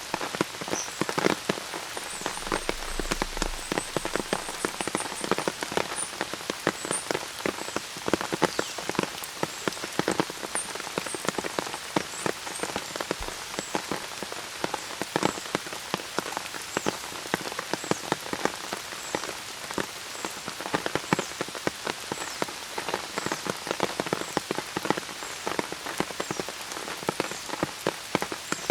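Steady rain falling, with many distinct close drops hitting a surface. Faint high bird chirps come through in the first half.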